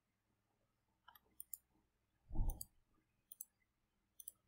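Faint, scattered computer mouse clicks, singly and in quick pairs, with one short low thump about two and a half seconds in.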